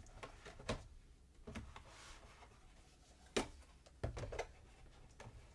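A tablet being pressed and snapped into a plastic protective case: a few short clicks and knocks, the loudest about three and a half seconds in, with a small cluster of clicks just after.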